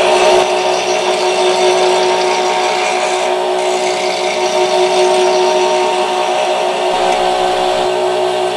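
Bench grinder running steadily with a white grinding wheel sharpening a steel blade held in a jig: a steady whine with a grinding hiss over it.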